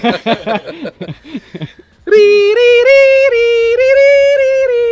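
A man laughing in short bursts that fade out, then, about two seconds in, singing loud held falsetto notes that step up and down in pitch, unaccompanied.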